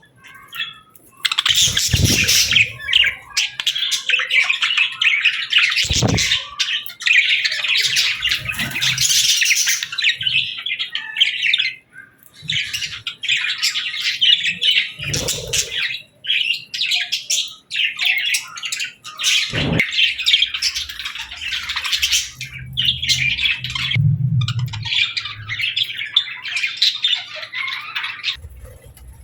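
A flock of budgies chattering and chirping continuously, starting about a second in, with a few short low thumps mixed in.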